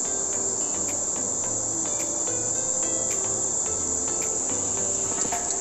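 Insects singing in a steady, high-pitched drone over the rush of a fast-flowing river.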